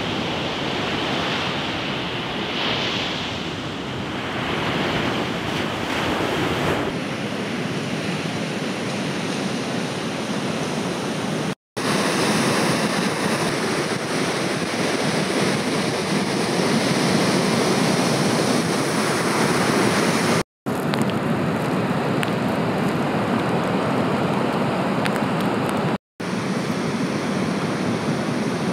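Surf breaking on a beach break, with wind noise on the microphone; a steady wash of noise that cuts out for an instant three times, about 12, 21 and 26 seconds in.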